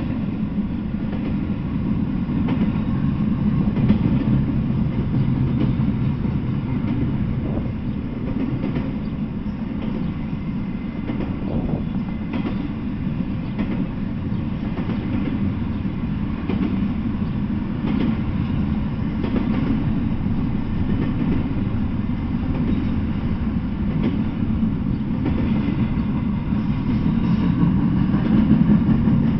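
Intermodal freight train of double-stack container well cars rolling past: a steady low rumble of steel wheels on rail, with an occasional click.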